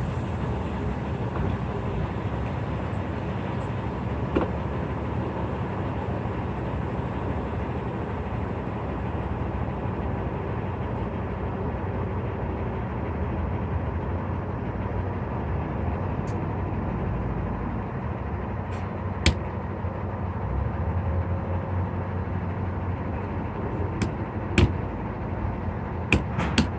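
Steady low rumble of an idling vehicle engine, with a few sharp clicks in the last ten seconds.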